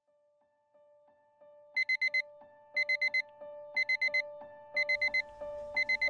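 Digital alarm clock beeping in groups of four quick high beeps, about once a second, starting about two seconds in, over soft background music with sustained keyboard-like notes.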